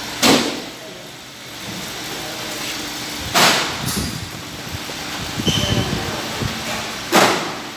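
Hydraulic guillotine shear cutting a thick stainless steel sheet: three loud, sharp crashes about three and a half seconds apart, each ringing briefly, over a steady machine hum.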